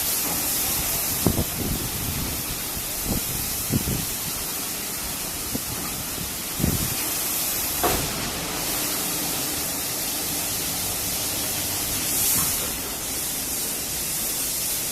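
Automatic car wash machine spraying through its jets: a steady hiss that swells briefly about eight seconds in and again around twelve seconds.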